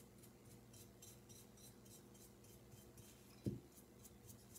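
Faint, quick scratching of a flat paintbrush's bristles dry-brushing over a ceramic duckling's moulded feathers, about three or four strokes a second. A steady low hum sits underneath, and there is one brief low sound about three and a half seconds in.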